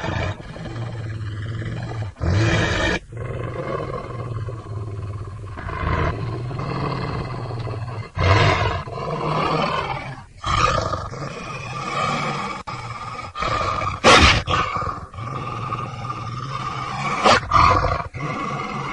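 Werewolf growl sound effect: a continuous low, rumbling growl, with louder roaring outbursts breaking out every few seconds, the loudest about fourteen seconds in.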